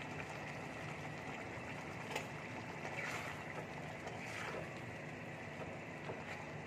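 Curry gravy boiling in a heavy pan over a gas burner, a steady hiss and bubble, with a few light scrapes of a metal spatula against the pan as it is stirred.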